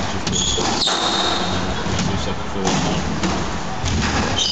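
Squash rally: the ball strikes the court walls and racket with several sharp knocks, while court shoes squeak on the floor in short high chirps, over background voices.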